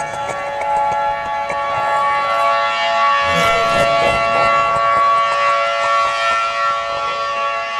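Civil defense-style warning siren holding a steady, multi-tone drone, with a rougher, noisier passage about three to four seconds in.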